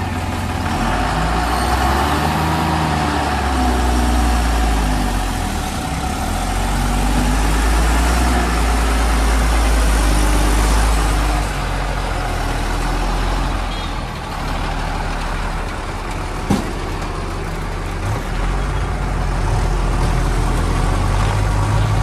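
JCB 3DX backhoe loader's diesel engine running under working load, its note rising and falling, louder over the first half and easing off after about eleven seconds. A single sharp knock comes about sixteen and a half seconds in.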